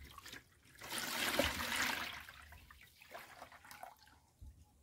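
Whey pouring from a glass mason jar into a plastic bowl of water. The splashing pour swells about a second in, then trails off to a thin trickle.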